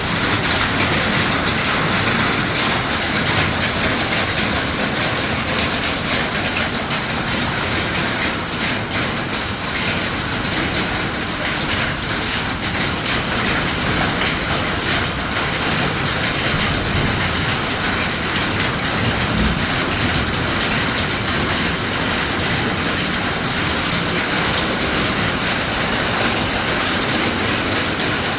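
Heavy rain mixed with hail, a dense, steady hiss and rattle of countless small impacts.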